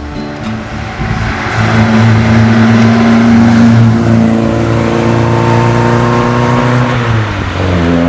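Ford Kent Crossflow 1700cc four-cylinder engine, with Weber 40 carburettors and a Kent Cams 234K camshaft, running. It is revved up about a second and a half in, held at raised revs for several seconds, then drops back toward idle near the end.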